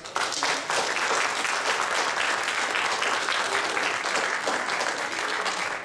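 Congregation and choir applauding: dense, steady clapping that breaks out all at once and eases off near the end.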